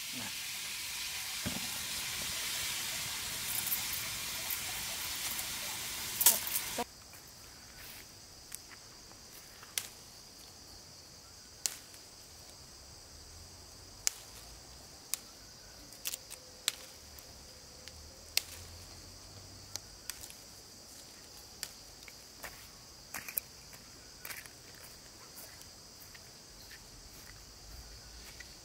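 Food sizzling as it fries in a pan for about seven seconds, cutting off suddenly. After that comes a faint steady high-pitched drone with scattered light clicks.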